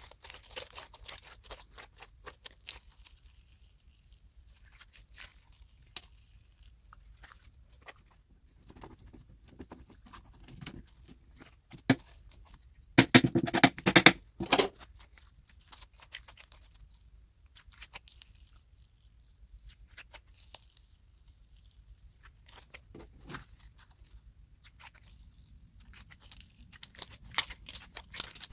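Slime being squished, pressed and mixed, making sticky crackles, small pops and wet clicks, with a louder run of squishing about halfway through.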